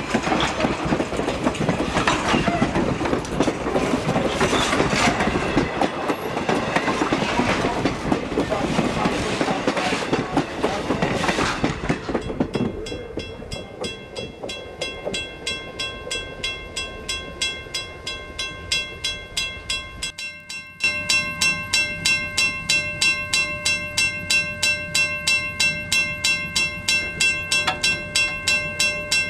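Passenger coaches rolling past, their wheels clicking over the rail joints. About twelve seconds in the train noise fades, and a railroad crossing bell rings steadily at about two strokes a second. After a break about twenty seconds in, the bell is louder.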